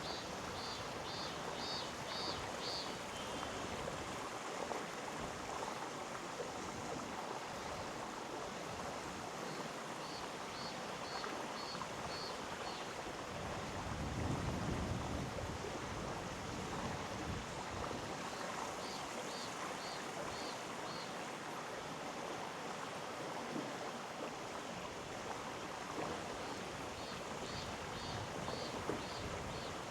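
Mountain stream flowing over rocks: a steady rushing of water. Four times, about every nine seconds, a short run of high, quick chirps sounds over it, about seven notes each.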